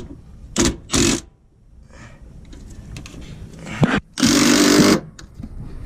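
A power tool run in short bursts: two brief ones about half a second in, then a longer burst of just under a second near the end.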